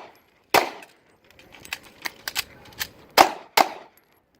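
Pistol shots: one shot about half a second in, then a run of small metallic clicks and clacks around two seconds in as magazines are changed, then two shots in quick succession a little after three seconds.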